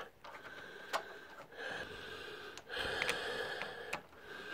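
A person breathing audibly in several long breaths, with a few faint metallic clicks from a socket extension as a spark plug is turned in by hand.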